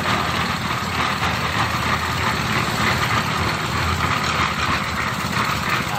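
A small engine on site machinery running steadily at an even speed.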